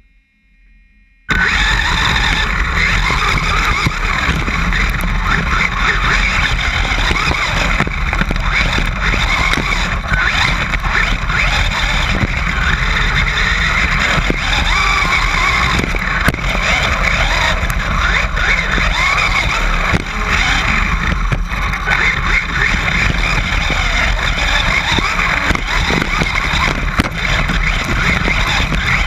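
Onboard sound of a Traxxas Slash 4x4 RC short-course truck driving hard over dirt and gravel: a continuous loud mix of electric motor and drivetrain whine rising and falling with speed, tyres crunching and skidding on gravel, and a low rattling rumble through the mount. It starts abruptly about a second in.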